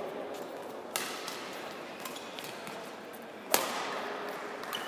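Badminton racket strings striking a shuttlecock twice, about two and a half seconds apart, the second hit sharper and louder, over a steady hall murmur.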